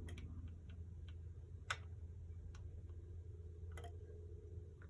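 Steady low hum of a household air conditioner running under the floor, heating the whole house, with a few scattered light clicks; the sharpest click comes just under two seconds in.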